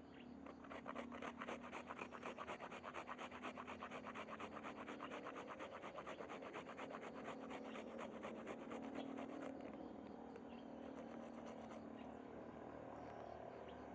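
Shallots being scraped on a hand grater in quick, regular rasping strokes, about five a second, fading to a weaker steady scraping after about ten seconds.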